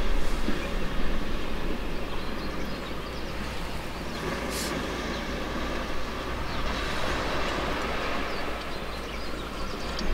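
Steady outdoor background noise, a low rumble under an even hiss, with a brief high hiss about halfway through and a click near the end.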